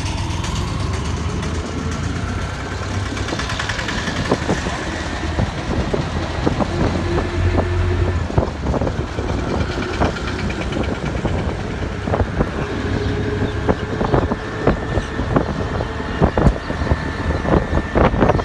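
A vehicle's engine running with road and traffic noise while riding through city traffic, with frequent short knocks and rattles.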